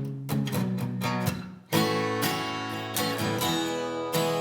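Acoustic guitar strummed in chords, with a brief near-stop about a second and a half in before the strumming comes back in full.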